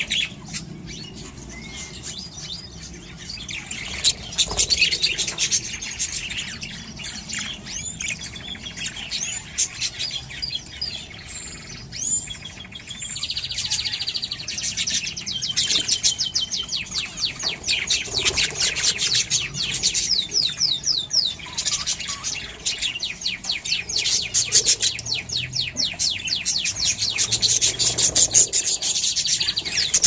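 A flock of budgerigars chattering and warbling: a dense, unbroken run of rapid high chirps and short whistled sweeps.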